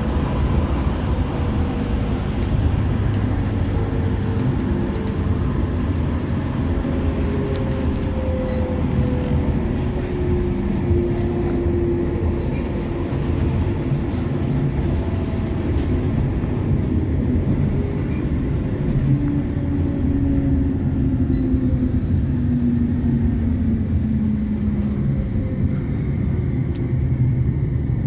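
West Midlands Metro tram (CAF Urbos 3) running between stops, heard from inside the car. A steady rumble comes from the wheels and running gear. The traction motor whine falls in pitch twice as the tram slows.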